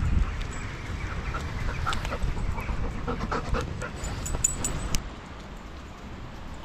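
A dog panting close by, with scattered light clicks and rustles that are busiest in the middle and die down about five seconds in.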